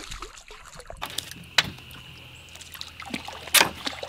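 Water splashing in the shallows as a hooked fish is pulled in, with two sharp splashes, one about a second and a half in and a louder one near the end.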